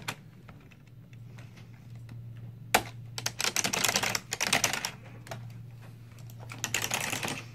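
Typing on a computer keyboard in two quick runs of key clicks, one about three seconds in and another near the end, just after a single sharp click.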